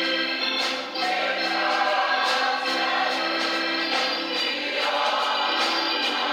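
Church choir singing a hymn in gospel style, accompanied by an organ holding sustained chords.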